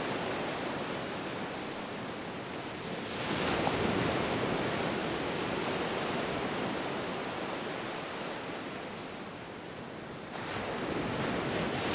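Rushing floodwater: a steady, even rush of noise that steps up in level about three seconds in and again near the end.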